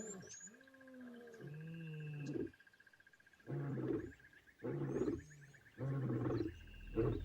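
Lion roaring: a few long moaning calls that slide down in pitch, then three short, loud grunting calls about a second apart.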